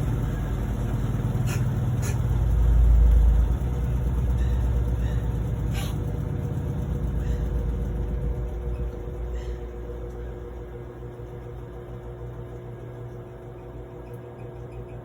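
Electrolux LT09E washing machine running with a low rumble and a steady hum, with a few sharp clicks in the first seconds; the rumble dies away over the second half, as the machine winds down.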